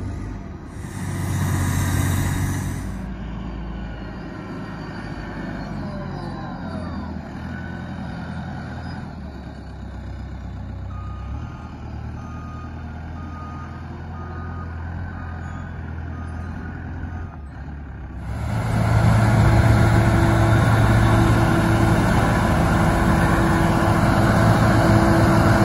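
Diesel engines of heavy snow-removal machines running, with a brief louder rush of noise about a second in and a backup alarm beeping steadily midway. About 18 s in the sound turns much louder: a loader-mounted snow blower running at full power, throwing snow into a dump truck, its engine a steady drone.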